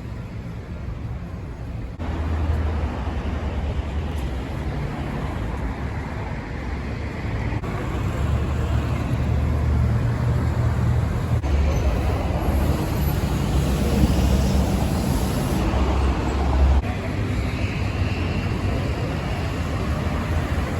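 City street traffic: a steady rumble of car and bus engines and tyres, with the level jumping abruptly a few times.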